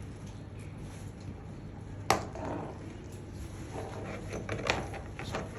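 Handling noises: a sharp knock about two seconds in, then rustling and a few small clicks near the end.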